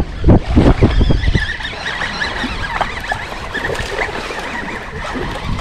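Wind buffeting the microphone over choppy lake water, with heavy gusty rumbles in the first second or so, then a steadier rushing hiss.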